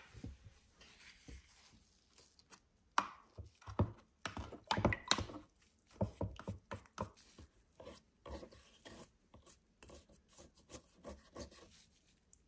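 Toothbrush scrubbing a rusty iron tin-can lid as it soaks in vinegar in a plastic tub: a run of quick, irregular rubbing strokes, busiest about four to five seconds in.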